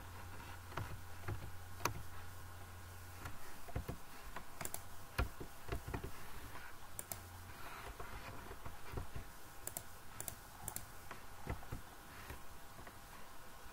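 Computer keyboard keys and mouse buttons clicking at irregular intervals as commands are entered. A low steady hum runs underneath and stops about halfway through.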